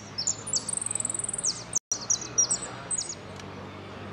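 Saffron finch singing a quick run of sharp, high-pitched notes and short trills for about three seconds, with a brief total cut-out just under two seconds in. A steady low hum runs beneath.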